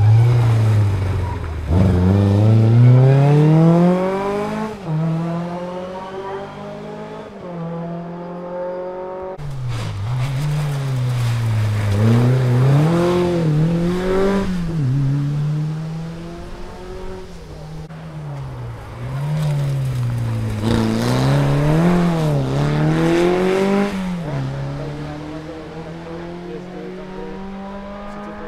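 Rally car engine at full throttle, its revs climbing through the gears, then dipping and rising repeatedly with lifts and blips through corners. It grows louder and fades more than once.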